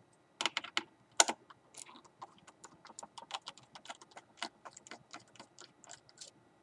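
Small screwdriver turning a hinge screw out of a laptop's metal hinge: a quick run of small clicks, several a second, with a few louder clicks in the first second and a half.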